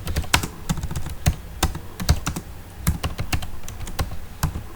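Computer keyboard typing: quick, irregular key clicks, several a second, with short pauses between bursts.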